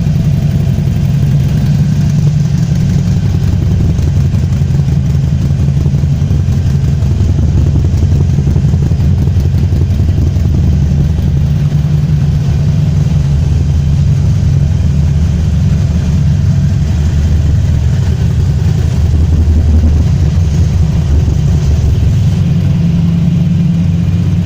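Harley-Davidson Iron 883's air-cooled V-twin engine running steadily through an open exhaust, low and loud, with only slight changes in engine speed.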